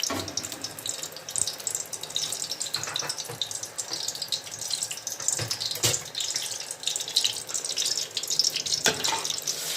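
Hot cooking oil crackling and spattering in a pot, with a few sharp knocks from utensils.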